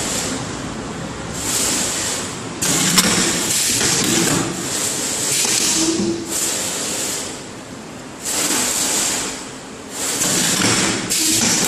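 Semi-automatic rectangle baking cup machine running through its forming cycles: repeated bursts of hissing about a second long, every one to two seconds, with a few sharp clicks in between.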